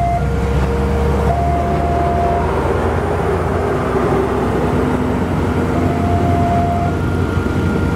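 A large coach bus driving past close by, its diesel engine giving a steady low rumble that swells in the middle as it passes. Slow background music with long held notes plays over it.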